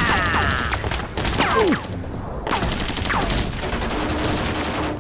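Dubbed sci-fi blaster sound effects for a toy robot's cannon: a rapid stream of gunshots mixed with several quick, falling 'pew' laser zaps.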